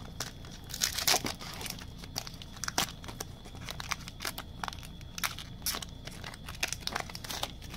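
Trading cards, plastic card sleeves and pack wrapping being handled: irregular crinkles and light clicks.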